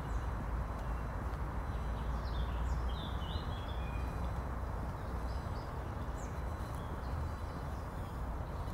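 Songbirds giving a few short chirps and calls, most of them about two to four seconds in, over a steady low rumble of city traffic.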